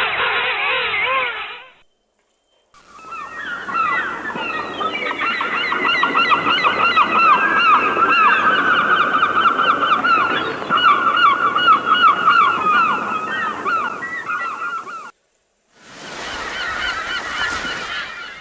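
Birds calling in a dense chorus of rapid, overlapping calls, in several separate recordings cut together with brief silent gaps.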